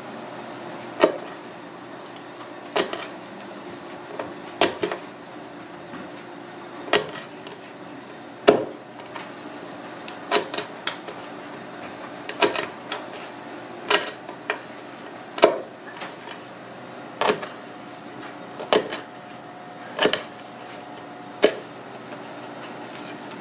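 Kitchen knife cutting through snow crab shell and knocking down onto a wooden cutting board: sharp knocks about every second and a half, some in quick pairs, over a faint steady hum.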